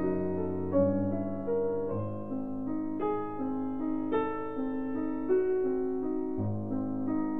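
Background instrumental music, a slow, gentle run of notes changing about once a second.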